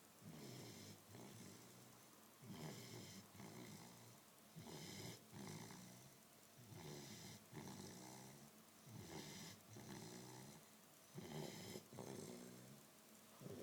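Dog snoring faintly in deep sleep, one snore about every two seconds in a steady rhythm.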